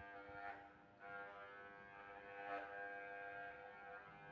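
Corded electric hair clipper buzzing steadily as it shaves a head down to the scalp, dipping briefly about a second in.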